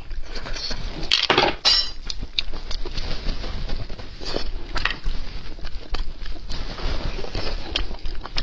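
Close-miked eating of braised beef bone marrow: a metal utensil clinks against the bones and plate, followed by wet chewing and mouth sounds. There is a loud, noisy stretch about a second and a half in, among many short clicks.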